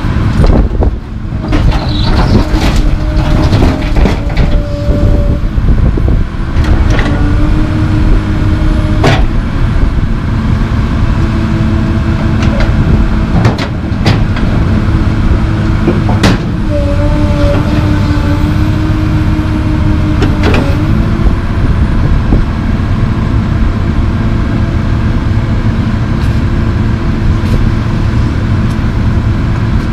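Komatsu PC220 LC tracked excavator working: its diesel engine runs steadily under load, with held hydraulic tones that come and go every few seconds as the boom and bucket move. Several sharp clunks and knocks sound through it, the first as broken concrete tips from the bucket into the steel dump body of the truck.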